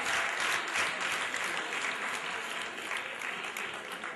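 Audience applauding, the clapping fading gradually toward the end.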